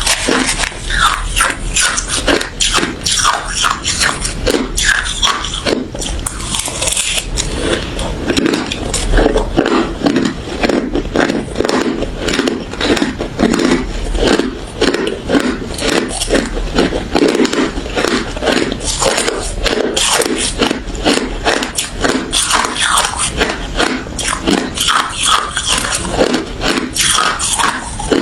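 Close-up crunching of refrozen crushed ice being bitten and chewed, a rapid, continuous run of sharp crunches.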